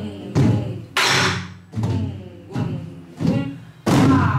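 Several soribuk, the barrel drums of pansori, struck together with sticks and open palms in a slow, even beat: about six strokes, each a sharp hit with a deep body that fades before the next.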